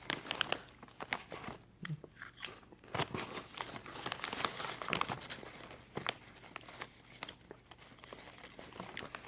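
A person biting into and chewing crisp potato chips: irregular crunches that come thick and loud for the first half, then thin out to softer crunches.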